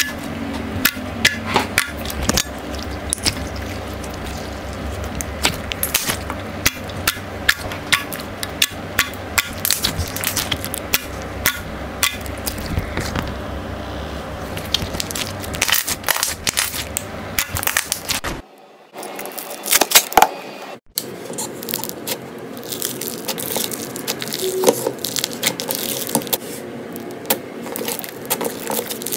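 Slime being squeezed and pressed by hand, giving dense crackling and popping clicks. The sound breaks off briefly about eighteen seconds in and resumes with a different background, as another slime clip begins.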